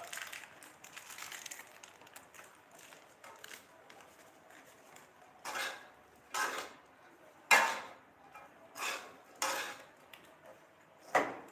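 Metal spatula scraping and knocking against a wok during stir-frying, about six separate strokes starting about five seconds in. Before that, faint rustling of a plastic packet being opened.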